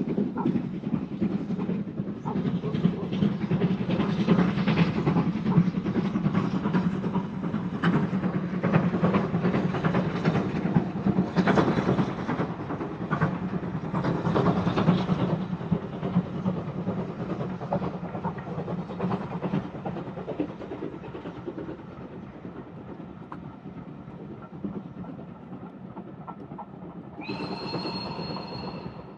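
A steam-hauled train, headed by the British Railways Standard 9F 2-10-0 steam locomotive, running past: a steady rumble with the clatter of wheels over the rail, loudest in the first half and then fading away. A short steam whistle sounds near the end.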